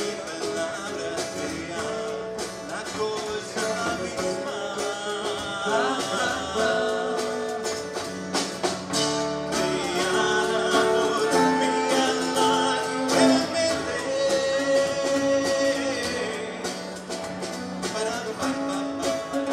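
Live band music: a man singing in Spanish over strummed acoustic guitars.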